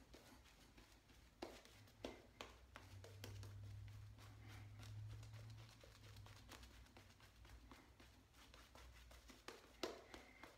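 Faint swishing of a synthetic shaving brush working lather onto the face, with a few light clicks; near silence otherwise. A faint low hum sits under it for a few seconds in the middle.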